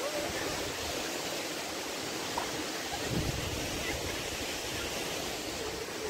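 Steady rush of falling water from a waterfall.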